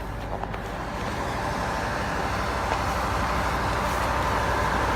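Drilling rig machinery running steadily: a constant low hum with a faint steady whine, growing gradually louder.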